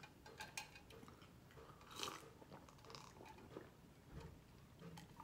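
Faint swallowing and small mouth clicks of someone drinking from a metal tumbler, a few soft gulps spread out, the clearest about two seconds in.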